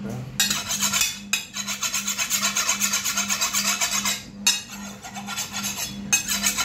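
A meat cleaver's blade is drawn quickly back and forth along a steel sharpening rod, giving a scraping rasp several times a second. There are short pauses about a second in and again near four and six seconds.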